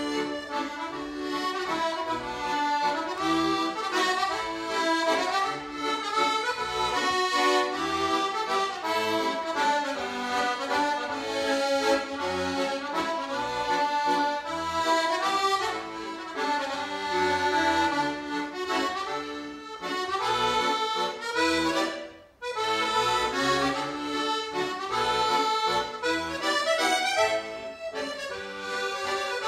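Solo piano accordion playing a tune, melody and chords over separate bass notes, with one brief break about three quarters of the way through before the playing carries on.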